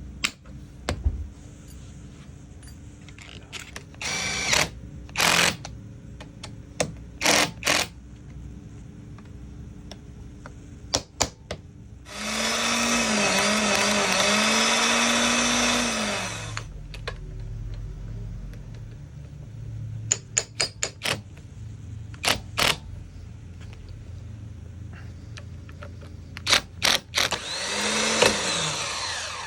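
Workshop work on a starter motor: scattered sharp metallic clicks and knocks of tools and parts. Twice an electric motor runs under load, once for about four seconds in the middle and again more briefly near the end, its pitch dipping and recovering.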